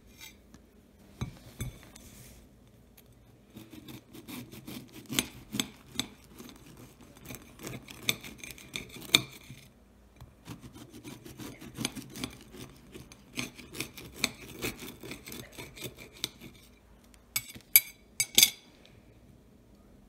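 Serrated bread knife sawing through a crusty loaf of soda bread in two runs of quick back-and-forth rasping strokes. A few sharp clinks of the blade on a ceramic plate come near the end.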